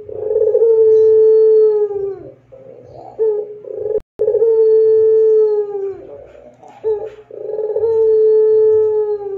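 Ringneck dove (puter pelung) cooing: three calls, each a short lead-in note followed by a long, drawn-out coo that holds one pitch and falls away at its end.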